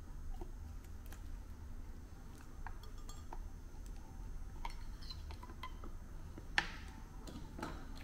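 Faint scattered clicks and clinks of airway equipment being handled as an intubating laryngeal mask (Fastrach) is slid out of a training manikin's mouth over an endotracheal tube, with one sharper click about six and a half seconds in. A low steady hum runs underneath.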